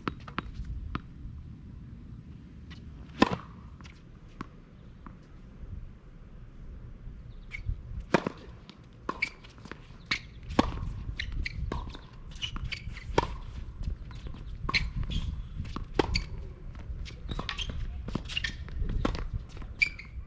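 Tennis balls struck by rackets and bouncing on a hard court during a practice rally: sharp, irregular pops, sparse at first and coming every second or so in the second half.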